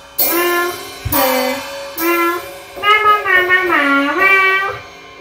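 A child singing long, wavering, wordless notes into a microphone, with the pitch sliding at the ends of phrases, over a drum kit; cymbal crashes with drum hits come just after the start and about a second in.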